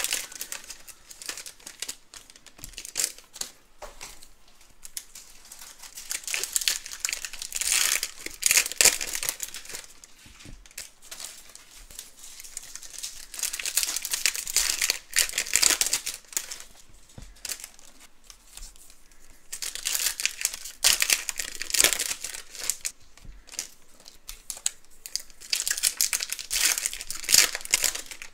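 Foil wrappers of 2015 Topps Valor football card packs being torn open and crinkled, in bouts of a few seconds with quieter lulls between.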